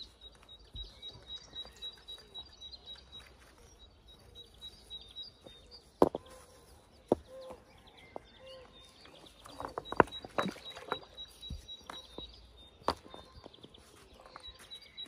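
Field stones knocking and scraping together as they are lifted by hand out of a pond's rock-lined bank, with sharp knocks about six, seven, ten and thirteen seconds in. A faint high chirp, evenly repeated, comes and goes beneath.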